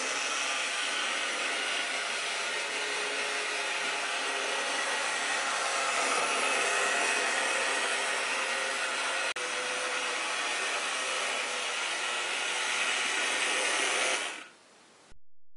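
Rivarossi HO-scale model of a Norfolk & Western Y6b 2-8-8-2 steam locomotive running on track: a steady whir from its electric motor and drive, with the wheels rolling on the rails. The noise dies away near the end.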